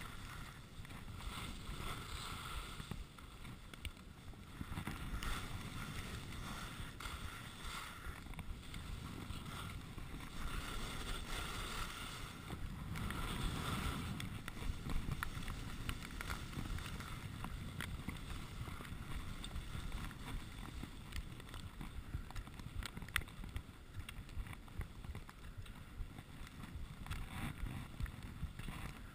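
Skis sliding and scraping over packed snow on a downhill run, with wind rumbling on the microphone; the swish swells and fades with the turns.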